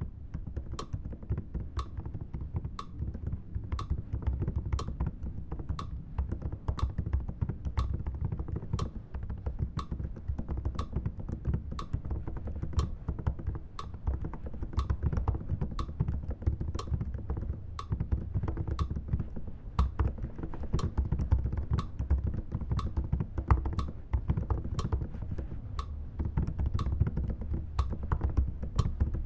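Computer keyboard being typed on continuously: a dense, unbroken patter of keystrokes. A separate sharp click sounds about twice a second throughout.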